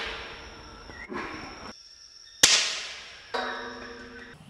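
A sharp gunshot crack about two and a half seconds in, with a long fading echo, following the fading tail of another shot fired just before. About a second after the crack, a short held tone of several notes together sounds for about a second.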